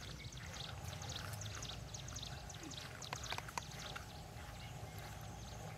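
Faint outdoor ambience: a steady low rumble with scattered short, high chirps and ticks.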